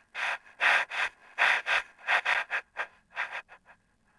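Crying sound effect: a run of short, gasping, sobbing breaths in quick irregular succession, about two or three a second, trailing off near the end.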